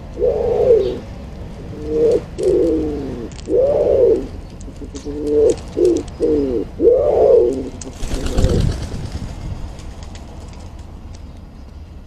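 Common wood pigeon cooing, a run of low, husky coo phrases with notes that rise and fall, repeating for about eight seconds. A brief noisy flurry follows about eight seconds in.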